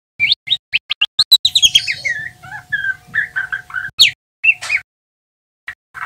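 Juvenile male white-rumped shama (murai batu) in subsong, practising its song (ngeriwik). It gives a rapid run of chirps, rising sweeps and short fluted notes, then falls silent for about a second near the end.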